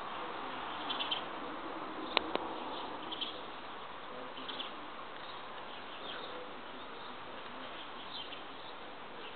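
Outdoor background of a steady insect buzz with small high chirps every second or two, and two sharp clicks about two seconds in.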